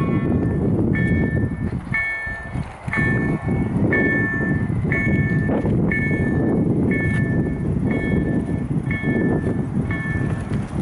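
Automatic level crossing warning signal sounding: a two-tone electronic ding repeating about once a second, over a loud low rumble.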